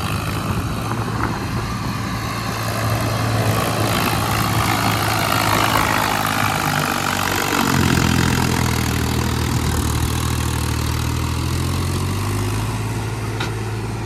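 Mahindra tractor's diesel engine working under load, pulling a loaded trolley up onto a road. Its note drops and deepens about eight seconds in, as the front wheels lift on the climb.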